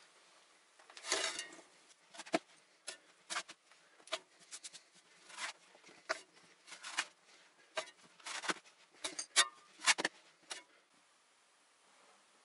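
Bricklaying trowel scraping and tapping mortar on a brick course: a run of short, irregular scrapes and knocks, the sharpest about nine to ten seconds in.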